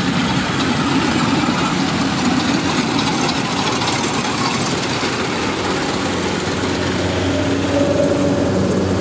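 Kubota DC-105X rice combine harvester running under load, its diesel engine, cutting header and threshing gear making a steady, dense mechanical din. About seven seconds in, a steady low engine hum comes through more clearly.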